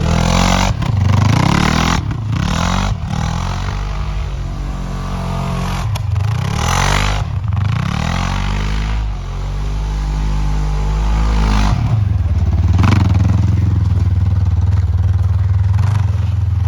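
Polaris RZR side-by-side engine revving up and down again and again as it spins and drifts in snow in two-wheel drive, with bursts of noise from the wheels. From about twelve seconds in it holds a steady high rev.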